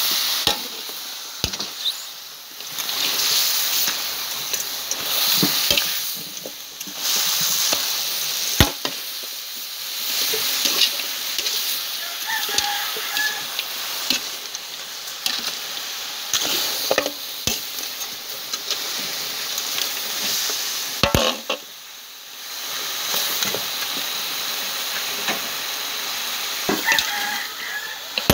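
Goat meat sizzling in a large metal wok, stirred and turned with a metal spatula that scrapes and knocks against the pan now and then; the sizzle drops briefly a few times between strokes.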